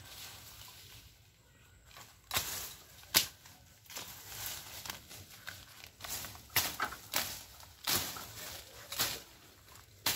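Thick weeds and grass being cleared by hand: a series of sharp swishing, rustling strokes through the vegetation, about eight of them at uneven intervals, starting about two seconds in.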